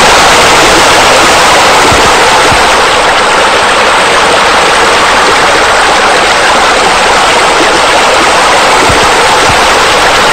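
Steady, loud rushing noise, even throughout without rhythm or breaks, like running water.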